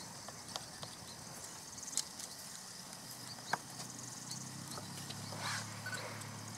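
Faint outdoor ambience: a low steady hum with faint insect buzzing, broken by two sharp clicks about two and three and a half seconds in.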